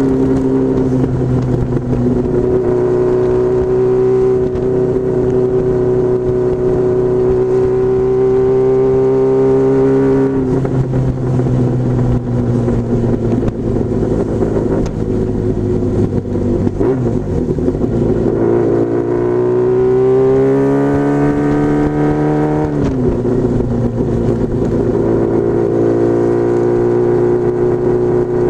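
Honda CBR1000F Hurricane's inline-four engine under way, holding a steady pitch, easing off about ten seconds in, then climbing in pitch under acceleration before falling sharply a few seconds later and settling steady again.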